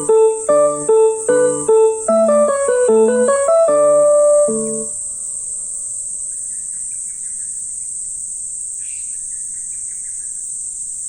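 Town wired-broadcast loudspeaker playing the 7:00 chime, an electronic piano-like melody from the old TOA sound source, which ends on a held note about five seconds in. A steady high-pitched insect drone runs throughout, with a few faint chirps in the later part.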